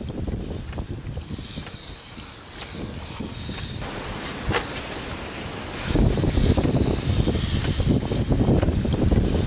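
Large grinding wheel turning with a low rumble while the curved steel blade of an old bread cutter is pressed against it and ground, with a scraping hiss over the rumble. One sharp click about halfway through, and the grinding gets louder about six seconds in.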